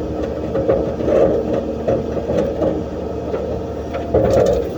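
Excavator's diesel engine running steadily under working load, with a rough, uneven drone and a few faint knocks.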